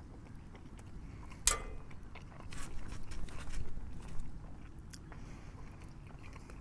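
A bite into a crisp pizza crust: one sharp crunch about a second and a half in, then a couple of seconds of crunchy chewing.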